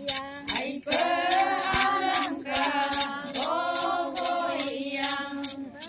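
A group of women singing a chant together in long held notes, clapping their hands in time, a little under three claps a second.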